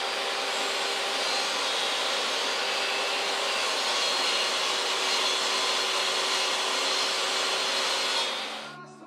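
Table saw running and ripping a board, a steady whine with one held tone in it, which dies away near the end.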